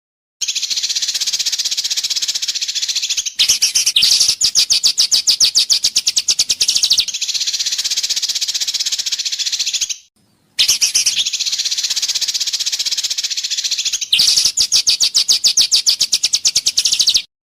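Recorded songbird song used as a bird-training ('masteran') track: a dense, high buzzing trill for about three seconds, then a rapid run of sharp repeated notes, roughly nine a second, for about three and a half seconds. The same phrase comes again after a brief break.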